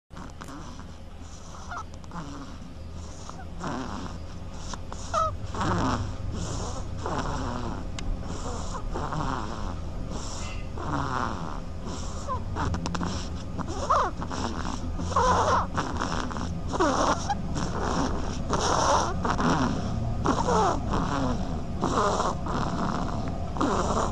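Snoring in sleep: a run of irregular, noisy breaths about one to two seconds apart, some with pitch glides that rise and fall, getting a little louder as it goes on.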